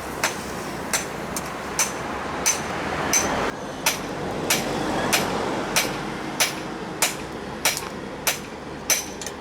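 Blacksmith's hammer striking metal in a steady rhythm, about three blows every two seconds, each with a short ring.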